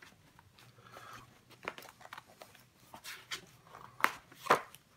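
A paper notebook in a plastic sleeve being slid into the pocket of a leather folio cover: soft rubbing and rustling with a few light clicks, two sharper ones near the end.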